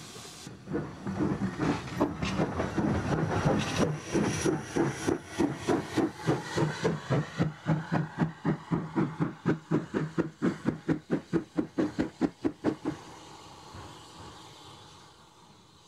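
15-inch gauge miniature steam locomotive working away with a steady exhaust beat of about three chuffs a second over a hiss of steam. The chuffs stop about three seconds before the end, leaving a fading hiss.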